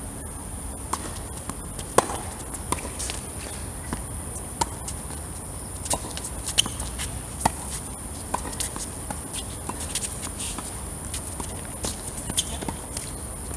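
Tennis rally on a hard court: balls struck by rackets and bouncing, a string of sharp hits at irregular intervals, the loudest about two seconds in, with players' footsteps and shoe scuffs. A steady high-pitched whine runs underneath.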